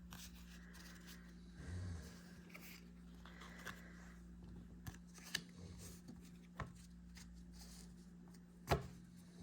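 Trading cards being handled: soft rustles and a few light taps and clicks, the sharpest one near the end, over a steady low hum.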